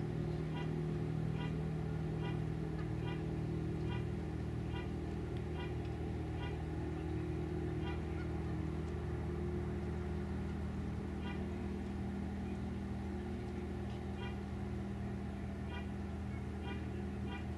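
Motorboat engine running with a steady low hum across the water. A rhythmic run of short high chirps repeats about two to three times a second over it, pausing for a couple of seconds midway.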